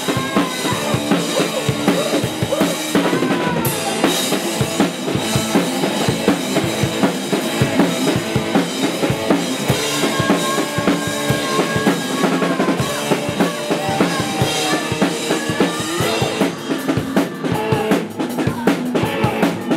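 A live rock band playing loudly: a drum kit pounding with electric guitar over it, the drumming becoming a dense run of fast hits in the last few seconds.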